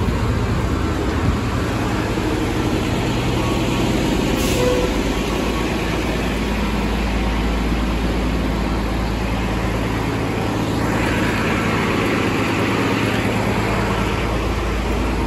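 Pace 2022 Eldorado National Axess transit bus running, heard from inside the cabin: a steady low engine and road rumble, with a stretch of hiss about eleven seconds in.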